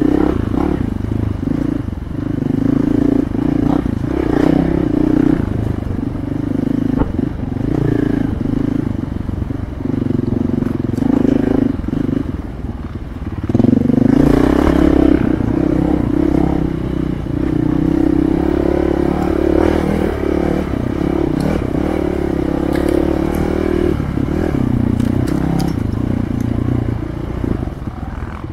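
Dual-sport motorcycle engine running under load on a trail ride, heard close up from the bike, its note rising and falling as the throttle opens and closes. It eases off about twelve seconds in and pulls hard again about two seconds later, with scattered knocks and scrapes over the rough ground.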